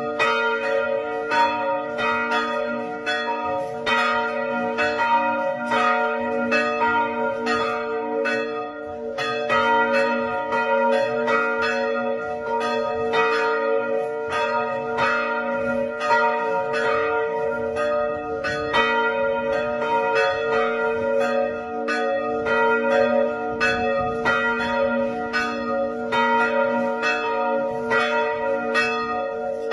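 Church bells of Phùng Khoang parish church ringing continuously: a steady run of strokes, about two a second, with several bell notes humming on and overlapping underneath.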